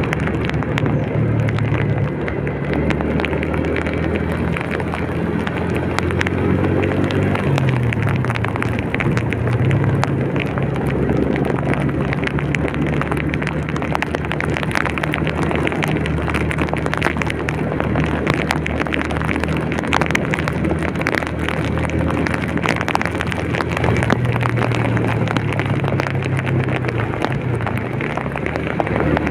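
A vehicle driving through heavy rain: raindrops patter densely on its body and the engine hum shifts in pitch several times as the speed changes, over a steady wash of road and rain noise.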